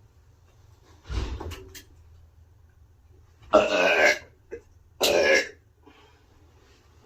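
A woman burping three times: a short, rougher burp about a second in, then two louder burps with a clear pitch about three and a half and five seconds in.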